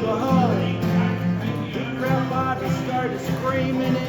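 Live country music with acoustic guitar, played between sung lines of the song.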